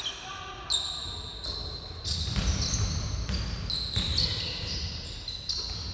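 Basketball being played on a wooden gym floor: sneakers squeak in many short, high-pitched squeals while the ball bounces and players' feet thump, getting busier from about two seconds in.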